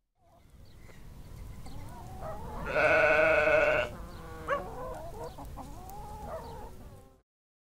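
A sheep bleating: one loud, long bleat of about a second near the middle, over an outdoor background with fainter animal calls. The background fades in at the start and cuts off suddenly near the end.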